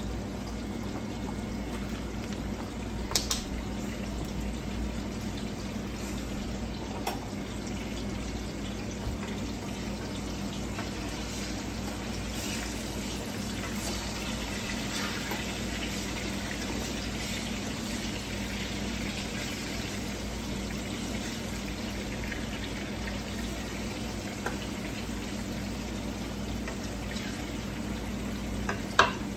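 Ripe plantain slices frying in oil in a skillet and a pan of seafood rice bubbling on a gas stove: a steady sizzle over a low steady hum. Two sharp metal clinks, about three seconds in and just before the end, the last as a fork turns the plantains.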